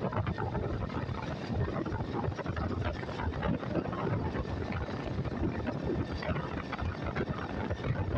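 Wind buffeting the microphone, mixed with the road and engine rumble of a moving vehicle: a steady, unbroken noise.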